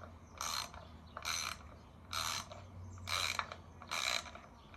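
Hand socket ratchet clicking in short runs, about one run a second, as the handle is swung back and forth on a bolt.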